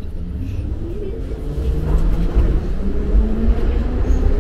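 Metro train heard from inside the carriage: a deep running rumble with a motor whine rising in pitch as the train gathers speed past a station platform, growing louder about two seconds in.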